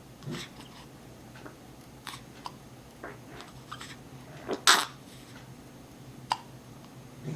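A pet animal making a series of short, irregular clicks and mouth noises, the loudest about four and a half seconds in.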